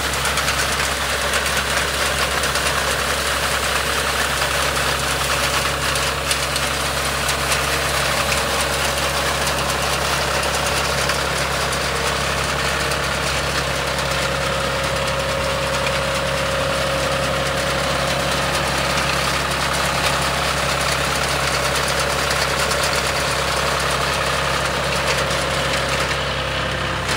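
John Deere tractor's diesel engine running steadily under load as it drives a front-mounted reaper through standing paddy.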